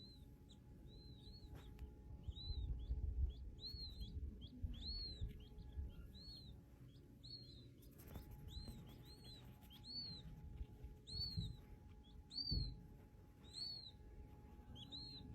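A small bird chirping over and over, short rising-and-falling chirps about one or two a second, with a faint low rumble underneath.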